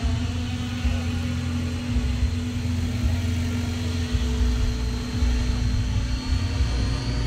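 Radio-controlled 3D helicopter running on or just above the ground, its rotor and motor giving a steady hum over a low rumble.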